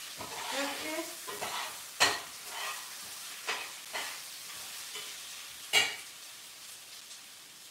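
Rice and browned orzo sizzling as they are sautéed in a pot, stirred with a metal spoon that clacks against the pot several times, loudest about two seconds in and again near six seconds.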